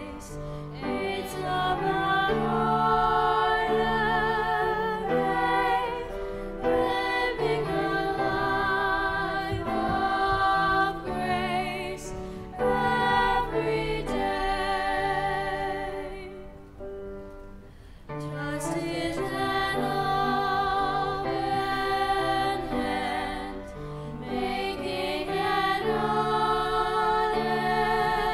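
A church hymn sung with wavering vibrato over a steady, sustained accompaniment, in long phrases with a short lull about two-thirds of the way through.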